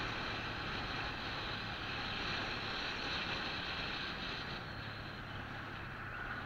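Steady wind rush on the microphone of a moving motorbike, with the low hum of the engine and tyre noise underneath. The rush eases slightly about four and a half seconds in.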